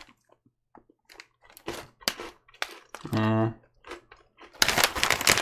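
Plastic snack packet crinkling and rustling in the hands as it is turned over, with scattered light crackles and a denser burst of crinkling near the end. A short hummed 'hmm' about three seconds in.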